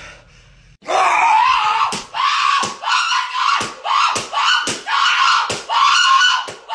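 A person screaming in a rapid string of short, high-pitched shrieks, one after another, starting about a second in.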